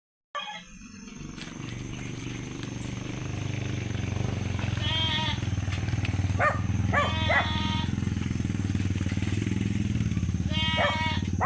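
An engine running steadily, growing gradually louder, with a few short calls over it.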